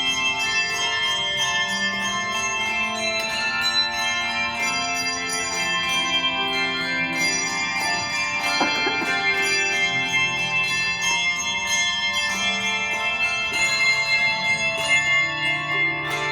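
A handbell ensemble playing a piece: many bells ringing and sustaining, their notes overlapping into chords while lower notes move beneath.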